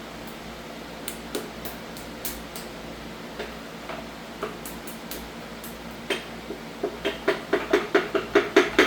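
Scattered light metallic clicks and clinks, then from about six seconds in a run of sharper, louder clicks that come faster, about four to five a second, from hand-tool and metal-part handling on an engine block.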